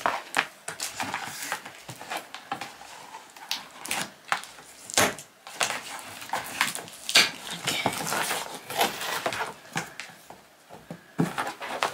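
Cardboard box being opened by hand: flaps lifted and scraping against each other, with irregular sharp taps and rustles of handled packaging.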